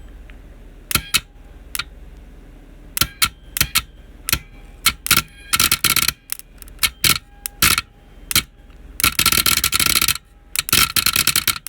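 An electrical contactor clicking repeatedly, and twice buzzing for a second or more as its contacts chatter and spark. A capacitor wired across it feeds the spark and is damaging the contact terminals.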